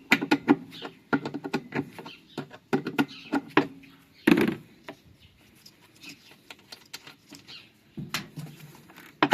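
Rapid metallic clicks and knocks of hand tools working a pulley off a washing machine's drive, with one louder knock about four seconds in and sparser clicks afterwards.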